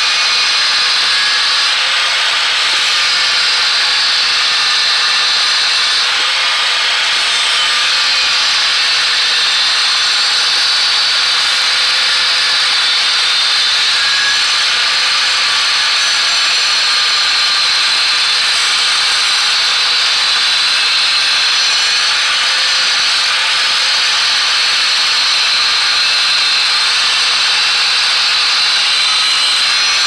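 Angle grinder with an abrasive disc running without a break, cutting into the steel laminated core of a microwave oven transformer. The sound is a steady, loud grinding, with most of its energy high up and a faint motor whine beneath.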